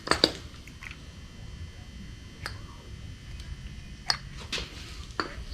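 A few sharp clicks and knocks from hand work on engine parts, the loudest pair just after the start and single lighter ones spread through the rest, over a low steady hum.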